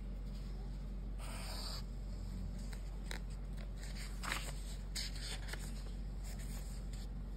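A paper book page being turned by hand: a soft paper rustle early on, then crisp flicks and rustles of the page about four to five seconds in. A steady low hum runs underneath.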